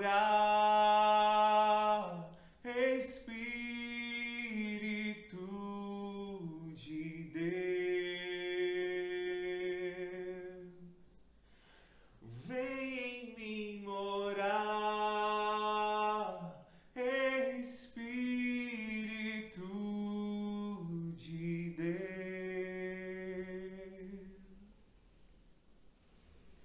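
A man singing solo and unaccompanied in long, drawn-out phrases, with a short break midway; the singing stops shortly before the end.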